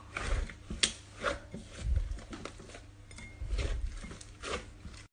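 Slime being squished and poked by hand: irregular sticky clicks and pops, some with soft low thuds.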